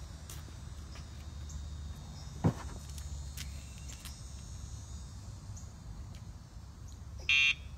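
Outdoor background of a steady low rumble with faint insect chirring. One sharp thump about a third of the way in, as the German Shepherd jumps down from her raised cot onto concrete. A short high beep sounds near the end.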